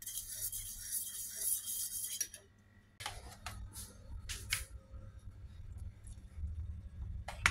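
A metal spoon stirring and scraping sauce in a small stainless-steel bowl. After a short pause come scattered clatters and handling noises as chicken is laid into an oiled non-stick wok with a spatula, over a low hum, with a sharp tap near the end.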